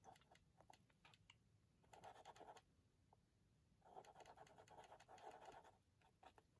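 Small paintbrush mixing paint on a paper palette: a faint scratchy swishing, once briefly about two seconds in and again for almost two seconds from about four seconds in, with a few light taps of the brush.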